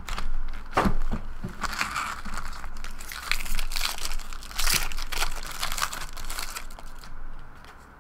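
Foil trading-card pack wrapper crinkling and tearing as a jumbo pack is ripped open by hand, in irregular crackles that die down near the end.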